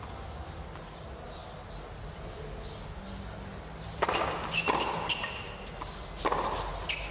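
Tennis ball struck by rackets on a hard court: a serve about four seconds in, then a quick string of sharp pops from the bounces and return shots. The court is quiet before the serve.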